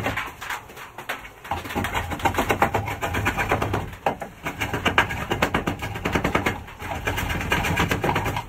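Draw knife shaving the edge of a thick wooden mantel beam, scraping off stock in several long strokes with short pauses between them.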